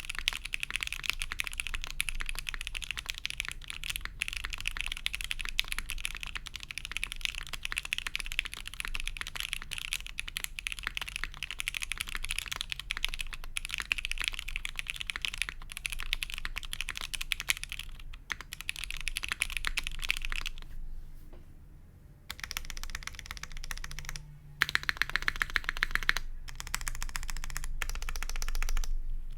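Continuous fast typing on a gummy O-ring-mounted mechanical keyboard with an FR4 plate, lubed OPBlack switches and GMK keycaps: a dense patter of keystrokes, with a brief lull about two-thirds of the way through.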